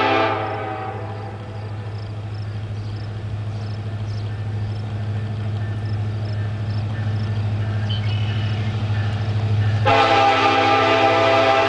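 Union Pacific diesel locomotive approaching: its multi-chime air horn cuts off at the start, then the engine's low rumble slowly grows louder as it nears. About ten seconds in, the horn sounds again, loud and held.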